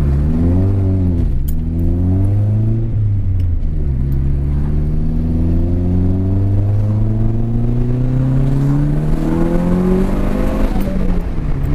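Nissan 200SX engine revving: two quick rises and falls in revs, then a slow steady climb for about six seconds before the revs drop off near the end.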